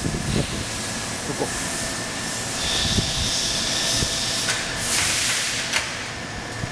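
Sesame seed colour-sorting machine running: a steady hiss of compressed air with a constant high whine. A few sharp, louder air puffs come in the second half.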